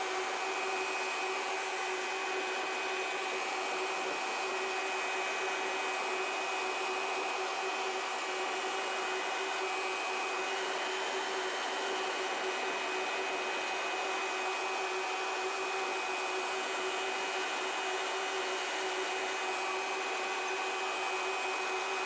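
Carrier 30GT chiller running: a steady mechanical hiss and hum with a few steady whining tones, unbroken throughout.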